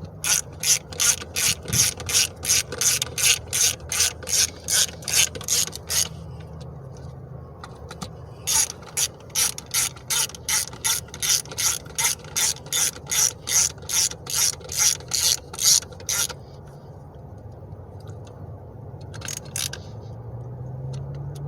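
Hand socket ratchet clicking in quick even strokes, about three a second, as T30 Torx bolts are tightened down: a run of about six seconds, a short pause, a second run of about eight seconds, then two last clicks near the end.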